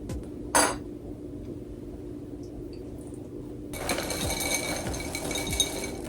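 A single sharp clink with a short ring about half a second in, then a rattling, crackling noise of small hard objects from a little before four seconds on.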